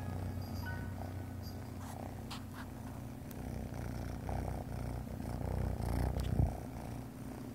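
A cat purring right at the microphone, a steady low rumble. A brief bump about six and a half seconds in as the cat rubs against the camera.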